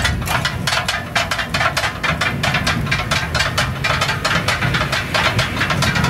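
Metal spatula blades rapidly striking and scraping a flat iron griddle as katakat offal is chopped and stirred, a fast clanking rhythm of several strikes a second, over a steady low rumble.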